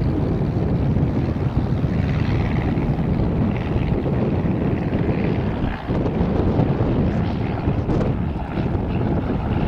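Cessna 140's single propeller engine running as the plane rolls along the runway and away, with heavy wind buffeting on the microphone.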